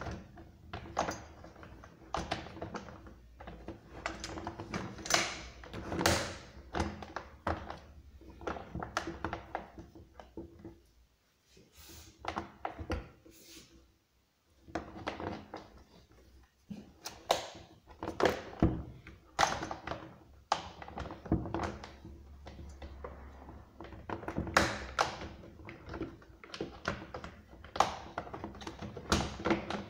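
Irregular hard plastic clicks and knocks as the top cover of a Husqvarna 236 chainsaw is handled and pressed into place on its housing, the saw's body knocking on a wooden table, with a couple of short pauses.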